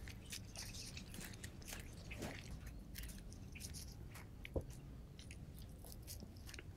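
Dried maize kernels being shelled off the cob by hand into a woven basket: faint, irregular crackling and clicking as kernels snap loose and drop, with one sharper click a little past halfway.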